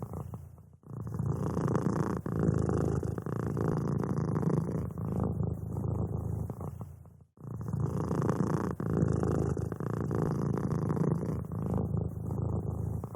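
Domestic cat purring steadily and close up, in long stretches broken by a brief drop about every six and a half seconds.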